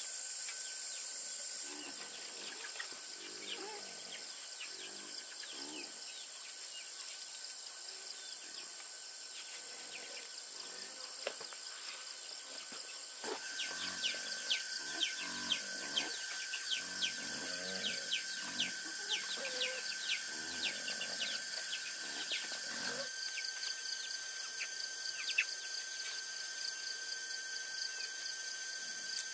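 Insect chorus: several high, steady tones with many quick chirps laid over them, busier from about halfway through, and fainter lower calls in places. The background changes abruptly a few times.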